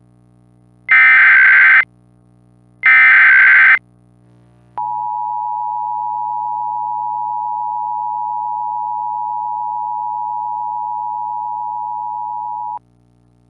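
Two screeching digital bursts of Emergency Alert System SAME header data, followed by the NOAA Weather Radio single-tone alert held steady for about eight seconds and then cut off sharply. Together they mark the start of an emergency alert broadcast on weather radio.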